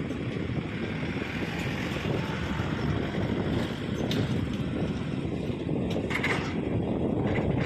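Heavy machinery engine running steadily in a low rumble, with a few short squeaks about four and six seconds in and again near the end.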